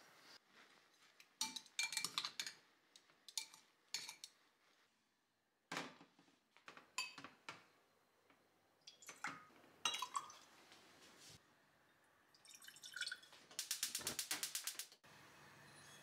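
Quiet kitchen sounds of utensils clinking against glass bowls and a metal ladle dipping and pouring broth. Near the end comes a quick run of about a dozen taps that stops abruptly.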